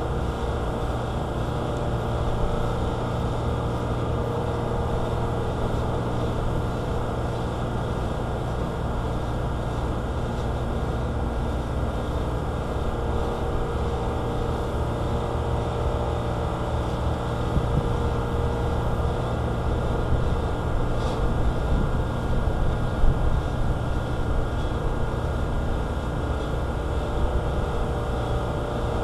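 Equalizer Raptor windshield-removal tool's motor running steadily, winding in the cutting line as it slices through the urethane holding the glass. There is one short click about 23 seconds in.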